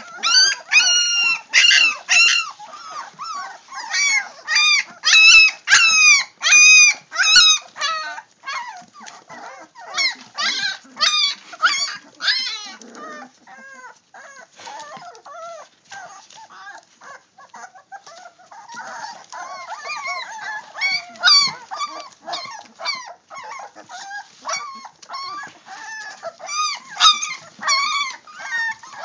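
A litter of young puppies whining and crying, many short high-pitched cries overlapping, each rising and falling in pitch. The crying is loudest over the first several seconds, eases off in the middle, and picks up again near the end.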